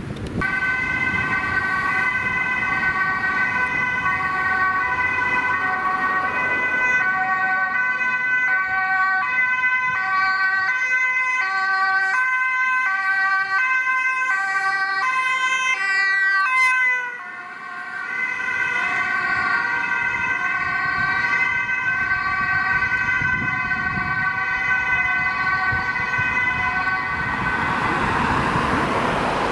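Dutch ambulance two-tone siren switching back and forth between a high and a low note about every half second, with a brief rising sweep about two-thirds through. Engine and tyre noise swells as the ambulance passes close near the end.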